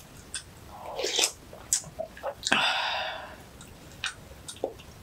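Close-miked eating sounds: slurping seaweed soup (miyeokguk) from a spoon and chewing, with small wet mouth clicks and a longer slurp about halfway through.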